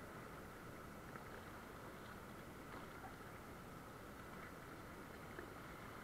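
Faint steady rush of river water around an inflatable raft being paddled, with a few soft knocks.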